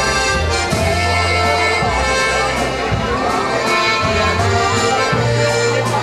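Live polka band playing a waltz, the button box (diatonic button accordion) carrying the tune over a bass line that changes about once a second.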